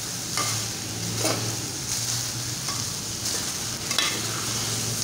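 A spoon stirs and scrapes chicken keema with peas in a steel pot over the steady sizzle of the cooking mince. Several sharper scrapes stand out, the loudest about four seconds in.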